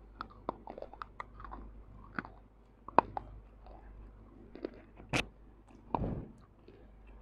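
Close-miked biting and chewing of baked clay and dried clay paste: a run of sharp crunches and crackles, the loudest about three seconds in and another just after five seconds, then a longer, softer chewing sound about six seconds in.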